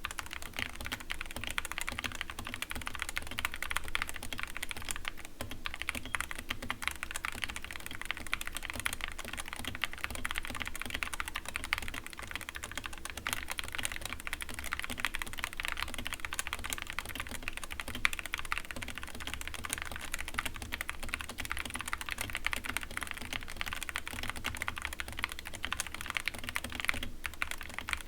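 Continuous fast typing on a stock, unmodded Skyloong GK61 keyboard with Gateron Yellow optical linear switches: a dense, steady stream of key clicks and clacks, the board not yet lubed and with stabilizers that rattle.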